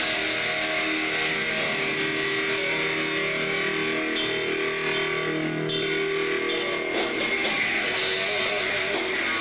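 Heavy metal band playing during a live sound check: electric guitar riffing over drums, with cymbal hits through the passage.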